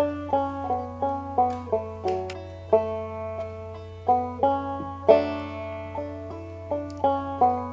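Background music: a plucked string instrument playing a quick run of notes.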